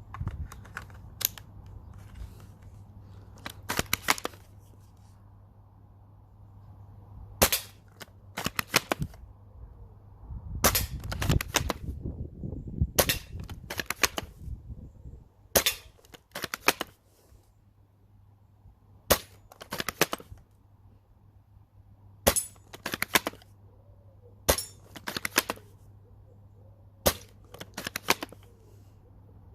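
Bolt-action airsoft replica of a MAS36 rifle being handled and cycled: clusters of sharp metallic clicks and snaps every two to three seconds as the bolt is worked and the replica fires.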